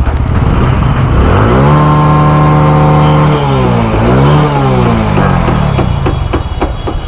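Motorcycle engine idling, then revved up and held high for about two seconds, dropped, and blipped once more before falling back to idle. It is being run up so its noise can be heard.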